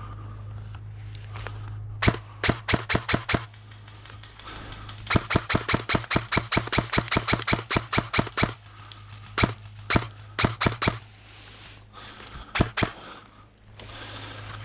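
Airsoft gun firing: a short string of rapid shots, then a longer run at about seven shots a second, then scattered single shots and a final pair. Each shot is a sharp crack over a steady low hum.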